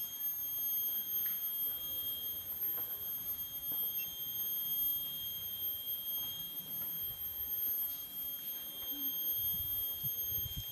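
Steady, unbroken high-pitched insect drone from the surrounding forest, with a faint murmur of distant voices underneath.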